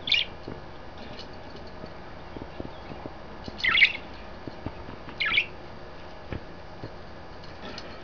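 Pet budgerigars (parakeets) chirping: three short, loud, high chirps, one right at the start, one a little before the halfway mark and one about two-thirds through, with fainter chirps between.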